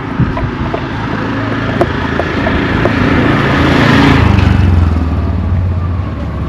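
A motor vehicle drives past close by. Its engine and tyre noise build up, peak about four seconds in, then fall away with a slight drop in pitch as it goes by.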